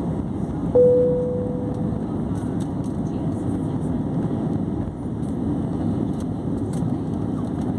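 Steady low rumble of an airliner's jet engines during takeoff. About a second in, a single ringing tone sounds and fades away over about a second.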